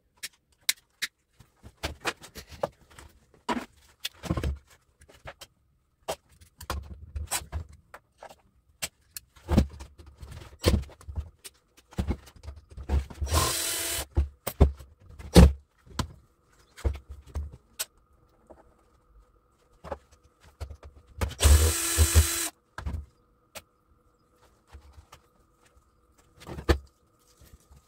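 Clicks and knocks of metal motor parts and tools being handled on a wooden workbench while a gearmotor is taken apart, with two short runs of a cordless drill, each about a second long, about 13 and 21 seconds in, driving out the motor's screws.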